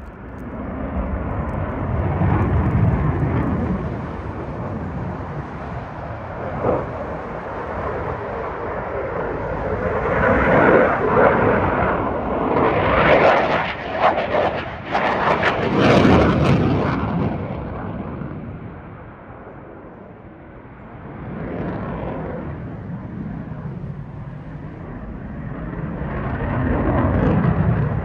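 Delta-wing fighter jet's engine noise during a flying display. It swells and fades as the jet manoeuvres, is loudest and crackling past the middle, dips, then rises again near the end.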